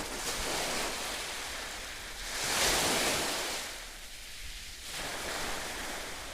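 Ocean surf: waves washing in a steady hiss that swells and fades, with one louder wave breaking about two and a half seconds in.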